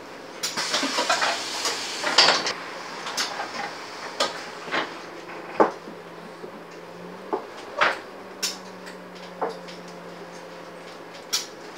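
Inside a Scania N230UD double-decker bus: a steady low engine hum under loose rattles and knocks from the bus's body and fittings, with a burst of quick clattering in the first few seconds and then single knocks every second or so.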